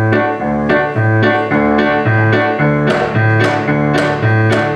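Yamaha S90 ES stage keyboard playing a song intro on a piano sound: low bass notes alternating with chords in a steady beat.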